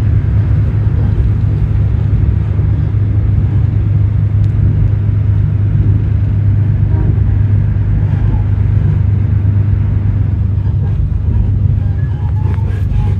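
Endeavour diesel railcar running at speed, heard from inside the passenger carriage: a loud, steady low drone and rumble from engine and wheels, with a few faint rattles near the end.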